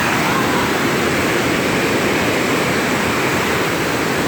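Waterfall rushing: a loud, steady roar of falling water with no break.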